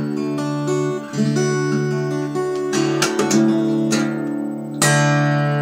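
Acoustic guitar in open C tuning playing a solo. Single picked notes ring over a low bass for the first couple of seconds, then come several sharp strummed chords, and a loud chord near the end is left ringing.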